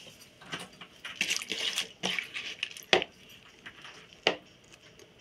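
Brine-soaked shredded red cabbage being pressed down into a glass jar by hand, with wet handling and dripping noise. Two sharp knocks of the glass jar come about three and four seconds in.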